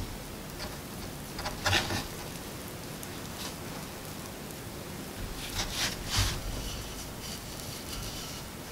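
Hands gathering and pressing scraps of scone dough on a floured wooden board: soft rustling and scraping, loudest in two short bursts, about a second and a half in and again around five to six seconds in, over a faint steady hiss.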